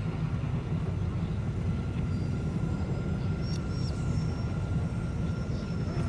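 Steady low engine rumble of a starship, with a faint steady hum above it and a few short, faint electronic beeps a little past the middle.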